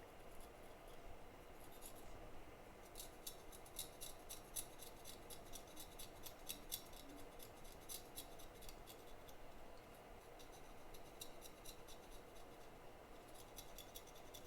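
Faint, rapid scratching and clicking of a small hand tool being worked hard against a chip or circuit board during microsoldering cleanup, densest through the middle stretch.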